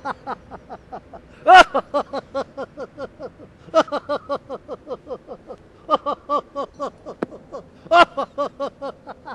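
A man laughing heartily and at length, in rapid ha-ha pulses of about five a second, with louder outbursts about every two seconds.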